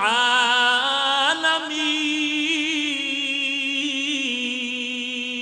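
A man reciting a Quranic verse in a melodic chant, drawing out the closing word "al-'alamin" into one long held note that wavers a little in pitch.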